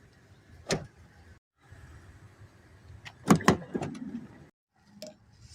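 Clicks and clunks of a door or latch being worked inside a camper van: one sharp click just under a second in, then two loud clunks in quick succession a little after three seconds.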